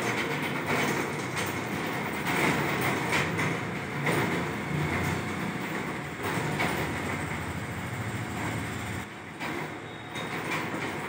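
Wheels of a mobile hydraulic scissor lift rolling across the floor as it is pushed by hand: a steady rumble with scattered clatter that eases briefly about nine seconds in.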